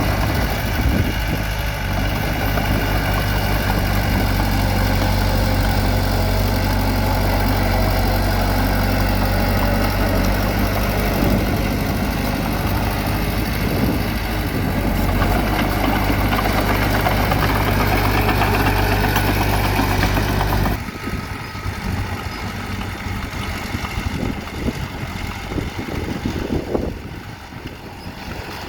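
Bulldozer's diesel engine running steadily with a low, even hum. About two-thirds of the way in it cuts off abruptly to a quieter, rougher engine sound.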